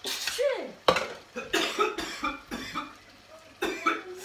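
Plastic spatula stirring and scraping chicken in curry sauce around a nonstick frying pan, with irregular knocks against the pan over a light sizzle.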